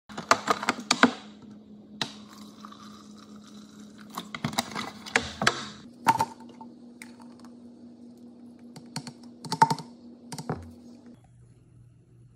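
Plastic shaker bottle and blender cup being handled and set down on a granite countertop: bursts of sharp clicks, taps and knocks, over a steady low hum that cuts off near the end.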